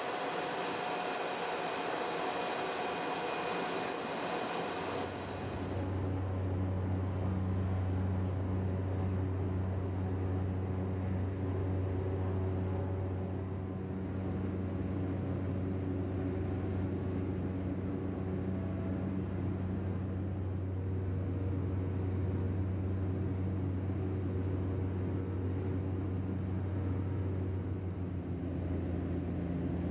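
Seaplane's propeller engine running steadily, heard inside the cabin. For the first five seconds it is a higher whine, then it changes abruptly to a deeper, louder drone that holds for the rest of the flight shown.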